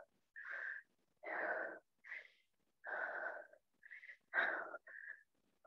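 A woman breathing hard and fast from exertion: short, noisy breaths in and out, about eight in under six seconds.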